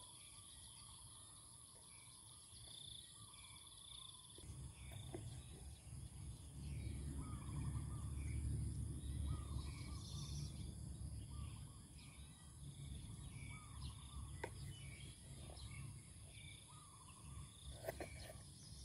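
Rural outdoor ambience: insects trilling steadily and a bird calling over and over from about six seconds in. A low rumble comes in from about four seconds in, and two sharp clicks come near the end.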